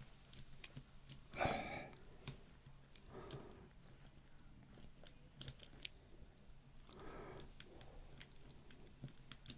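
Faint, irregular small clicks and scrapes of a lock pick working the pins of a small four-pin padlock under tension, while single-pin picking it.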